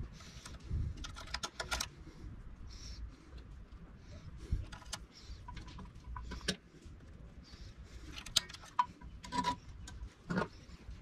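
Light clicks and metal taps as a cleaned Briggs & Stratton carburetor and its mounting bolts are handled and fitted onto the engine by hand. The taps come irregularly, with a quick run of clicks about a second in.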